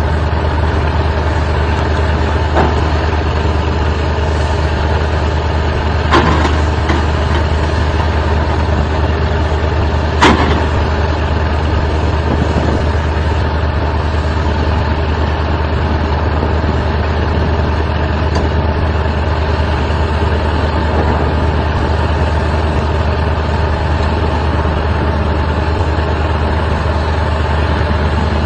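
Excavator engine running steadily with a deep hum, with a few sharp clanks, the loudest about ten seconds in.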